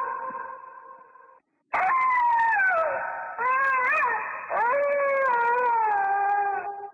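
An animal howling: a long wail fades out, then after a brief break come three more long wavering howls, the first falling in pitch, the last rising and then slowly sinking. The sound is dull and thin, with the top cut off, as from a heavily compressed low-quality recording.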